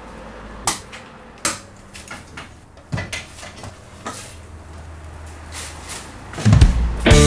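A few separate knocks and clicks, wood and metal, as a roof window's sash is handled on its hinge brackets. Near the end, loud music with a guitar comes in.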